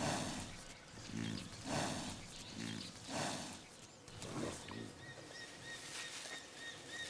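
Cape buffalo giving low grunts and heavy breaths, about four of them in the first few seconds. A faint, rapidly repeated high chirping follows later.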